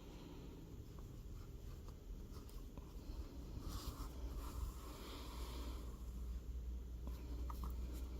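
Faint scratchy rustling of yarn being drawn through a crocheted piece and the piece being handled, louder about four to five seconds in, over a low steady hum.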